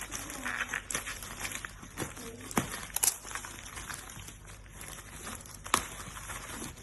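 Crinkling and rustling of handled packaging, with several sharp clicks spread through it.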